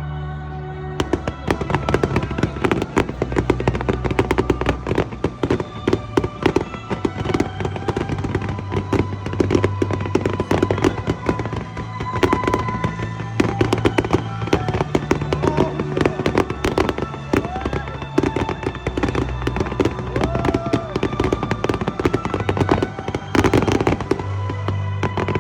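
Aerial fireworks crackling and bursting in dense, rapid succession from about a second in, over background music.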